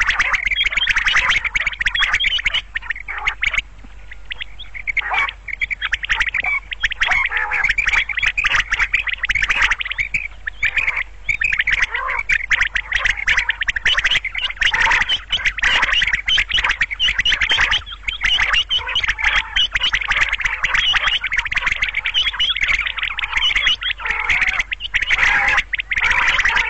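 Common quail calling in a dense, rapid run of clicking, chattering notes, with a brief softer stretch about four seconds in.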